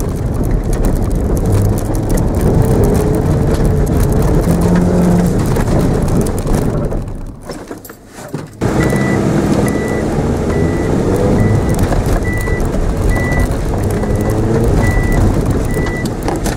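Mitsubishi Mirage engine revving up and down under hard driving, heard from inside the cabin, with tyres rumbling over grass. The sound drops away briefly about seven seconds in, then comes back. From about nine seconds in, a high beep repeats about once a second.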